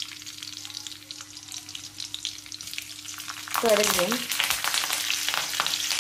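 Mustard and cumin seeds crackling and sputtering in hot oil, the tempering (phodni) for a curry. A little past halfway curry leaves go into the oil and the sizzle gets louder.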